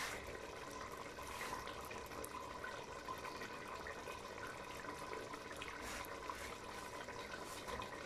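Chicken curry bubbling in a steel pot on the hob: a steady wet hiss of simmering liquid with small pops and an occasional louder bubble bursting.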